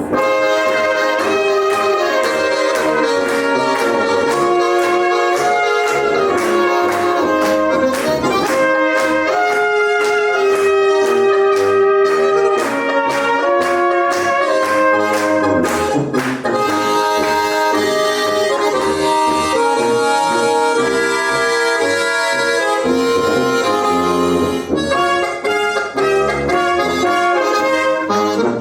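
Small brass ensemble playing a lively, bouncy original tune, several parts moving together, with a passage of short, crisply detached notes in the middle.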